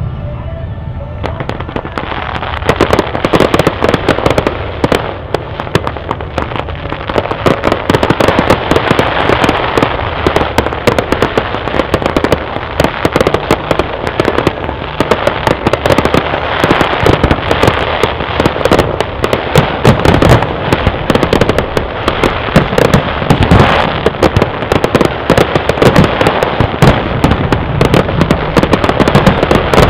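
Fireworks display: a dense, unbroken run of bangs, pops and crackling from many shells bursting at once. It starts about a second in.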